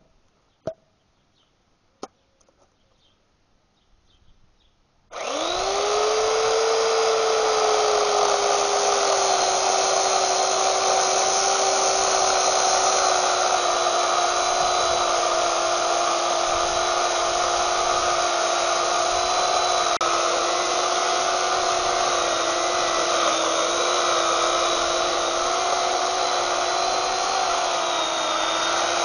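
A few sharp clicks, then about five seconds in a small 8-amp electric chainsaw with a 14-inch bar starts and runs steadily, cutting into a hardwood railroad tie. Its motor whine jumps up as it starts and then sags slowly as it works through the wood.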